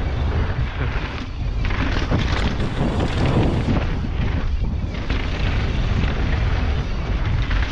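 Wind buffeting the microphone of a camera on a mountain bike ridden fast downhill, with a steady rush and rumble of tyres and bike over rough trail.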